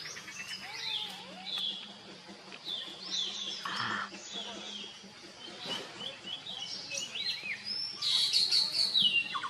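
Small birds chirping repeatedly in short rising and falling calls, growing busier and louder near the end.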